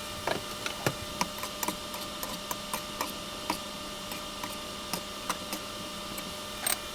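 Irregular light clicks and taps of kitchen utensils, a few a second and uneven in strength, over a steady electrical hum.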